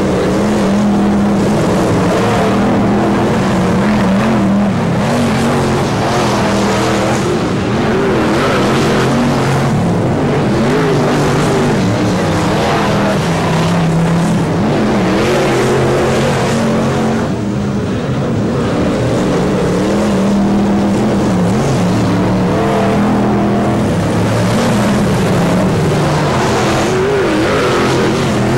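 Several F1 stock car engines running hard together, their pitch rising and falling as the cars race and lift off.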